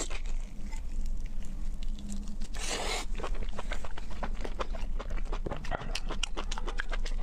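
Close-miked wet eating sounds: chewing, lip-smacking and sucking sauce-coated lamb meat off the fingers, a quick run of small sticky clicks, with a brief rush of noise about two and a half seconds in.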